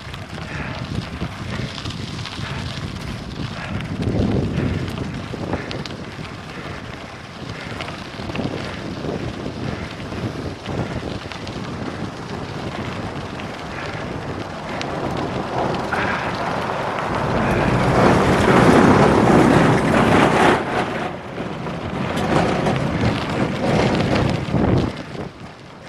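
Wind buffeting the microphone of a handlebar-mounted 360 camera, with tyres rolling and rattling over a gravel road, during a fast downhill on a cyclocross bike. It grows louder for a few seconds past the middle.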